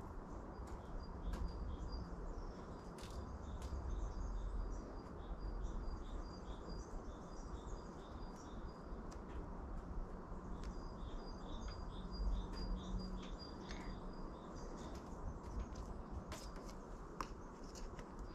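A small bird chirping in quick runs of short, high, repeated notes, twice, over steady low background noise, with a few faint clicks.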